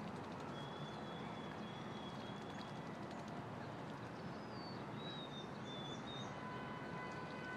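Birds splashing as they bathe in a shallow spring, over a steady hiss of background noise, with thin high bird whistles now and then: one long whistle early on and a few shorter ones past the middle.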